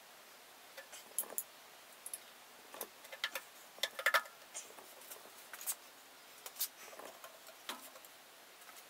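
Irregular light clicks and taps from handling the oak chair's wooden parts, a glue brush and a metal glue pot while hot hide glue is brushed into the joints.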